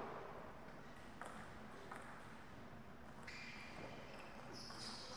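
Table tennis ball clicking off the table and bats: single clicks about one and two seconds in, then quicker, brighter hits in the second half as a rally gets going.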